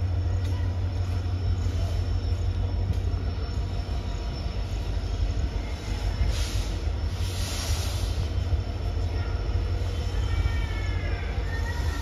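Passenger train drawn by an electric locomotive approaching, with a steady low rumble. A hiss comes about six to eight seconds in, and the wheels squeal with gliding high tones near the end.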